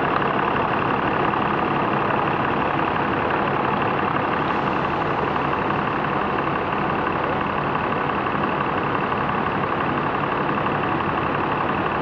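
Stopped traffic idling steadily at a red light, loudest the diesel engine of a double-decker bus alongside.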